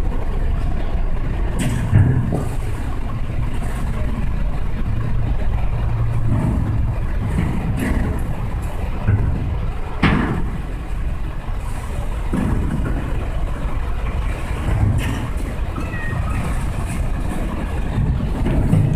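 Two cats in a standoff under a car, giving low growls and short yowls at each other over a steady low rumble. There is a sharp knock about halfway through.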